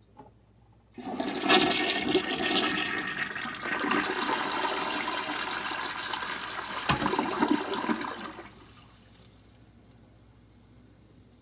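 Mansfield Summit toilet flushing: about a second in, water rushes into the bowl and swirls down the drain in a loud, steady rush lasting roughly seven seconds, then drops away to a low level.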